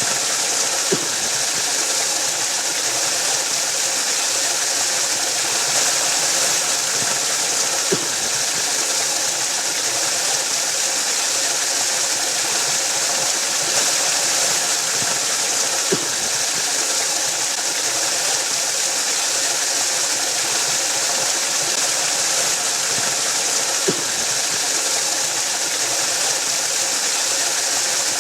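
Waterfall rushing steadily, an even hiss weighted toward the high end, with a faint tick about every eight seconds.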